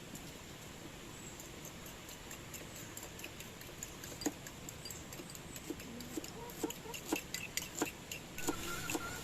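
Domestic fowl clucking in short calls over a steady hiss, with scattered sharp taps or clicks that become more frequent from about three seconds in.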